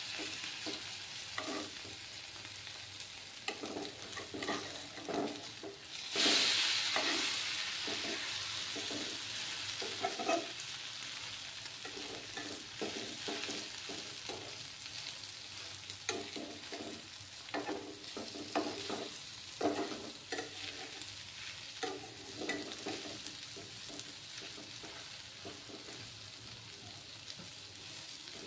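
Potato pancakes sizzling in oil in a nonstick wok, with a spatula scraping and tapping against the pan over and over as they are flipped and pressed. The sizzle flares up loudly about six seconds in.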